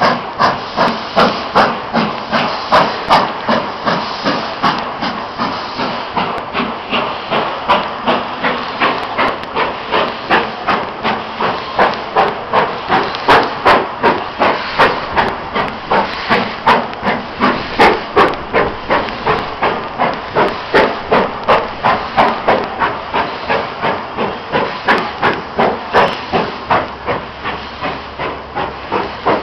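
BR Standard Class 9F 2-10-0 steam locomotive working hard to pull a heavy 1600-ton stone train away. Its exhaust beats come slow and even, about two a second, over a steady steam hiss, and grow a little quieter near the end as it draws away.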